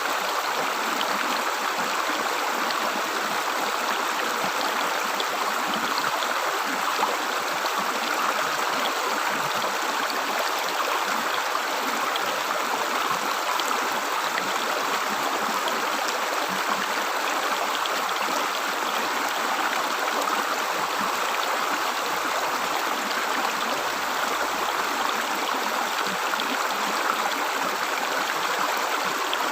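River water gurgling and splashing steadily over rocks, as an even rush with many small bubbling splashes.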